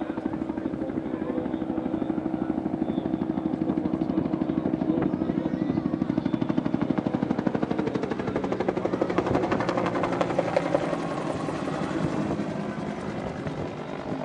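Bell UH-1 Huey helicopter flying overhead with the rapid beat of its two-bladed main rotor and a steady turbine hum, growing louder toward the middle and easing slightly near the end as it banks.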